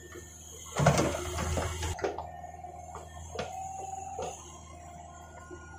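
CAT mini excavator running: a steady low engine hum, with a louder rough noise about a second in lasting about a second, then a steady whine of one pitch from about two seconds in and a few sharp knocks.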